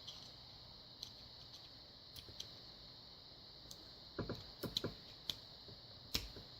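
Faint, scattered small clicks and taps from handling the picked dimple lock and tools in the vise, with a cluster of them about four to five seconds in.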